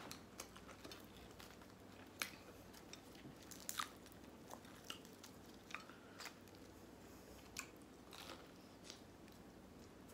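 Faint, scattered crackles of crispy fried chicken breading as the chicken is pulled apart by hand and chewed.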